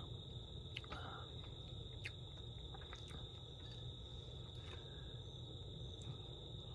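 A faint, steady, high-pitched chorus of night insects trilling without a break, over a low steady hum, with a few faint clicks.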